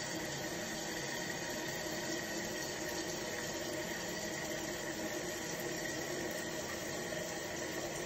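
Toilet tank refilling through a newly installed fill valve: a steady rush of water.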